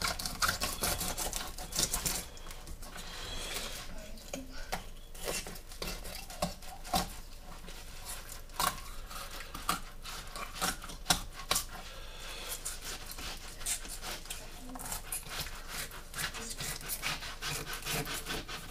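Fillet knife working along a white perch on a cutting mat: irregular scraping and rasping as the blade slices through scales, skin and bone, with sharp ticks of the knife against the board.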